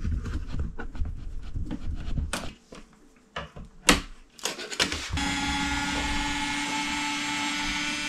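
Screwdriver scraping and clicking against a plastic switch wall plate as the plate is worked off, with a sharp click about four seconds in. A little after halfway, a small cordless power screwdriver's motor starts and runs at a steady pitch for about three seconds.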